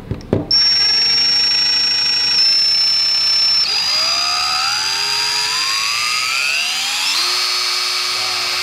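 DeWalt 18-volt cordless drill running unloaded in the air, its motor and gears giving a steady high whine that starts abruptly about half a second in. About four seconds in the pitch shifts and some tones slide upward, then it holds steady again from about seven seconds in.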